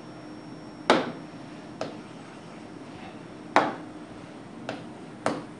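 A stylus tapping against the screen of an interactive whiteboard while writing: about five sharp, irregularly spaced taps, the loudest about a second in and again near the middle, over a low steady room hum.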